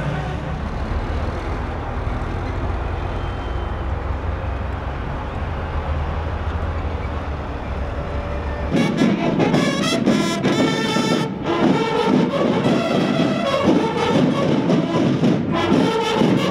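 A steady low engine drone for a little over half the time, then an abrupt cut to a marching band of brass and drums playing loudly.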